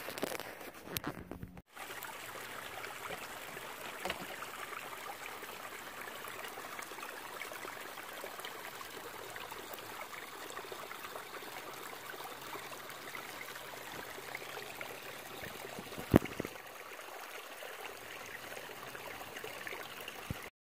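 Small stream flowing and trickling in a steady rush. A single sharp click comes about sixteen seconds in.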